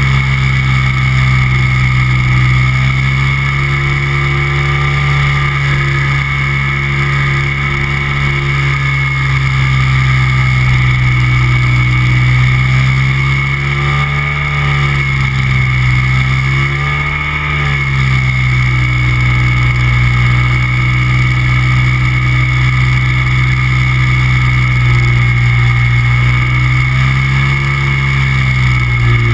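Microlight trike's engine and propeller running loud and steady, the engine speed dipping briefly and recovering twice, about halfway through.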